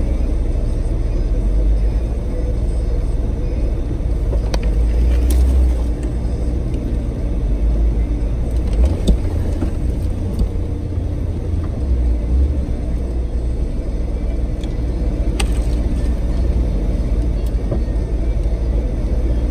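Vehicle engine and drivetrain running with a steady low rumble as it drives slowly along a rough trail, heard from inside the cab. A few short knocks come through, the clearest about five and fifteen seconds in.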